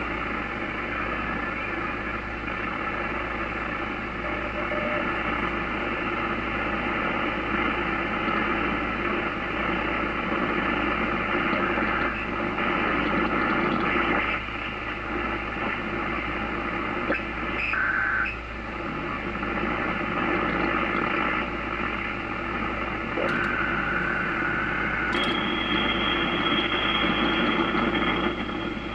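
Static hiss from an Icom IC-746Pro HF transceiver's speaker as it is tuned across the 40-metre and 20-metre sideband bands, with no readable stations: poor band conditions. A few short whistling tones pass by, and a steady high whistle comes in near the end.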